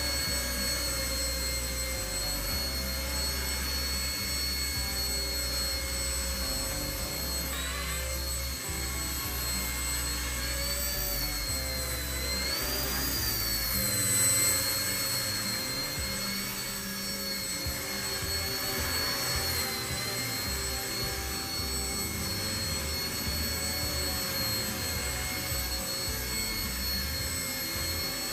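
Blade 70 S ultra-micro RC helicopter hovering: its brushed electric motors and rotors give a steady high whine, which wavers and briefly rises in pitch about halfway through.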